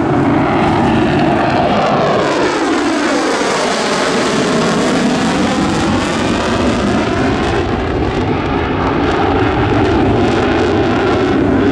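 Military jet fighter making a loud pass overhead. Its engine noise holds steady with a sweeping, wavering pitch as it goes by.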